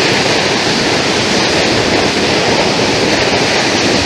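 Water spilling over a concrete dam and falling to the river below: a loud, steady rush.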